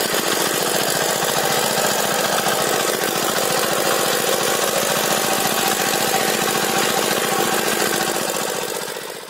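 Small engine of a mini land cultivator (power weeder) running steadily under load, firing in a fast even rhythm as the machine pulls its tines through soil. It fades out near the end.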